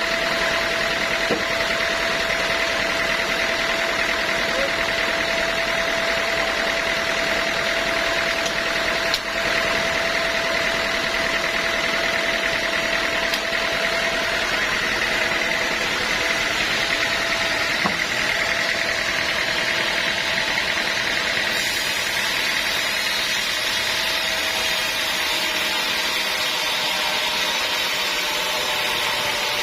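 Sawmill machinery running steadily: an even mechanical noise with a steady whine, no cuts or impacts standing out.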